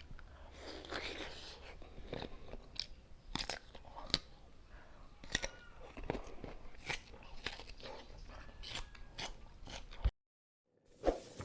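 Crisp crunching bites and close-up chewing of unripe green mango, sharp crunches coming irregularly every half second or so. The sound drops out completely for under a second near the end.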